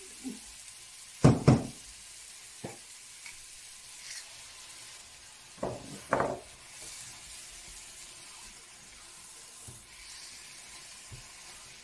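Chickpea and vegetable curry sizzling in a frying pan as tomato sauce is poured in and stirred. Several sharp knocks against the pan; the loudest two come close together about a second and a half in, and two more come about six seconds in.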